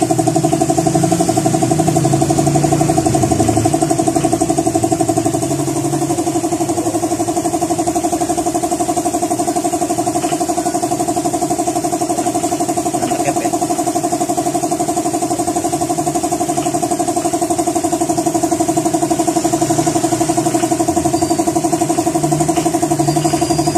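A small engine running steadily at idle with a fast, even pulse, dipping slightly in level about five seconds in. There are a few faint clicks over it.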